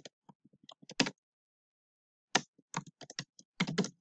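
Typing on a computer keyboard: a loose run of keystrokes, a pause of about a second, then a quicker run of keystrokes near the end.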